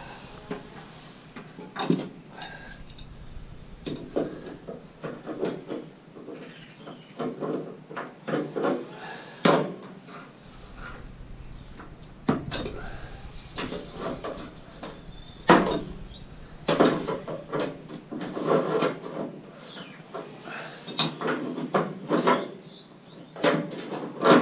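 Scrap metal and hand tools being handled: irregular knocks, clanks and scrapes, several a few seconds apart.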